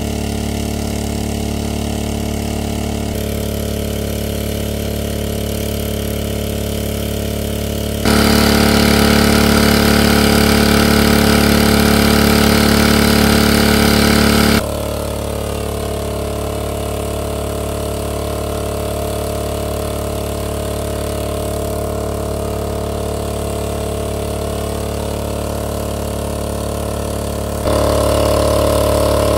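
Small engine-driven water pump running steadily at a constant speed, pumping water out of a stream pool through a hose. The sound jumps louder for several seconds in the middle and again near the end.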